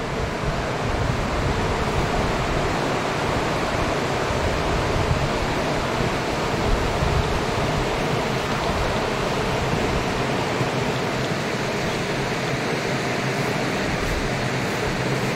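Steady rush of fast-flowing river water, with some wind buffeting the microphone in the first couple of seconds.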